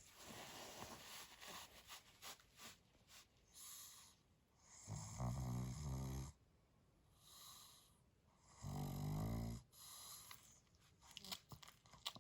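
Pug snoring in its sleep: two loud snores, each about a second long and some three and a half seconds apart, with softer noisy breathing between them. Such snoring is typical of the breed's short, flat muzzle.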